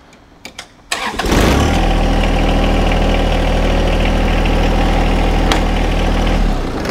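John Deere 1025R compact tractor's three-cylinder diesel engine cranked and started about a second in. It runs steadily for about five seconds while the tractor creeps forward, and is shut off near the end.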